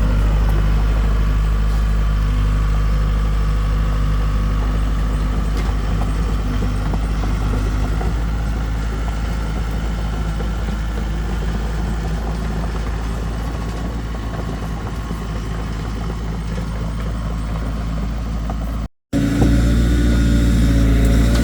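Engine running steadily with a deep, even rumble. It cuts out for an instant near the end and comes back slightly louder.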